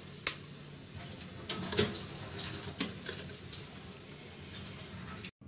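Steady hiss of water with a few light clicks and knocks; the sound cuts out briefly near the end.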